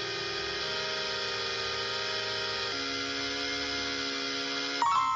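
Song intro: a sustained, buzzy synthesizer chord held steady, moving to a new chord twice, with a higher ringing tone cutting in near the end.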